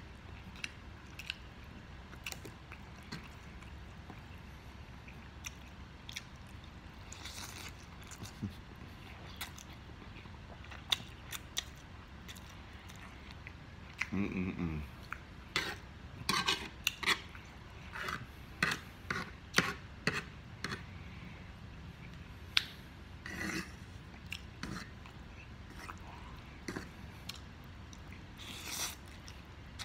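Close-miked eating of instant ramen noodles: a metal fork clicking and scraping on a wooden board as noodles are picked up, with wet chewing and lip smacks. The sharp clicks come thickest past the middle, and a short low hum comes about halfway.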